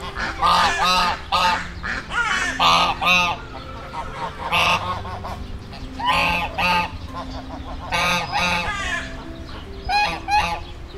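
Mallard ducks quacking: loud, nasal calls in short runs of two to four, repeated every second or two.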